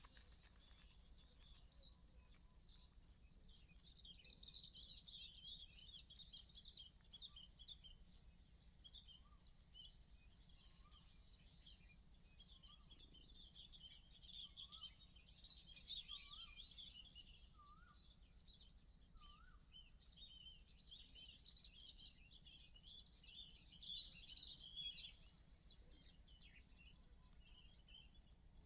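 Small birds chirping and twittering: short high chirps repeating more than once a second over a busier chatter, with a few faint rising whistled notes in the middle.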